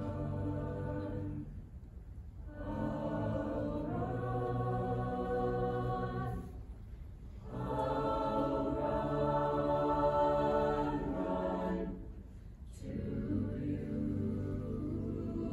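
Mixed choir of teenage voices singing in long held chords, phrase by phrase, with a short pause between phrases about every five seconds.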